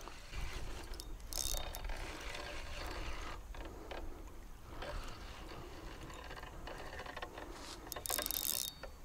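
Spinning reel being cranked, its gears and pawl clicking and whirring as a hooked fish is reeled in. Two short hissy bursts come through, one about a second and a half in and one near the end.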